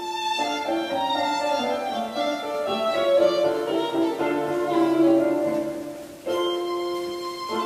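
Instrumental music sample played through a pair of tower speakers alone, without the DML panels, and picked up by a microphone in the room. The music dips briefly about six seconds in before the next phrase starts.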